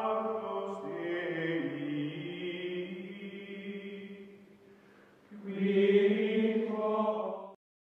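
Outro music of long held, choir-like chanted chords. The chords shift about a second in and fade away around five seconds in. A louder held chord then comes back and stops abruptly near the end.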